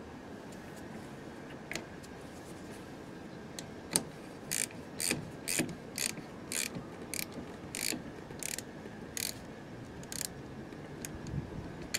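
Socket ratchet tightening the clamp bolt on a car battery's negative terminal: a sharp click, then about ten short ratcheting strokes at roughly two a second, tailing off into a few faint clicks.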